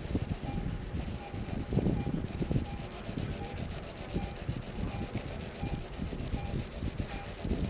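Surgical suction tip slurping and crackling irregularly as saline irrigation fluid is drawn out of the nasal sinuses. Under it is a faint short beep repeating about every two-thirds of a second.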